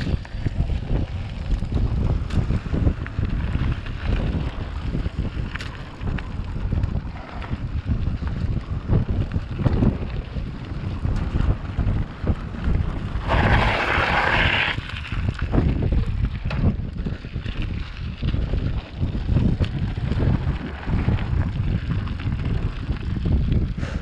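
Wind buffeting a bicycle rider's action-camera microphone, over a constant low rumble and many small knocks from the bike jolting on a rough, stony road. About halfway through there is a brief hissing rush of about a second and a half.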